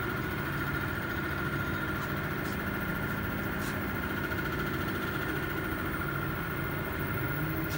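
High-voltage pulse modulator cabinet running, giving a steady electrical hum with a constant high whine over it and a couple of faint ticks.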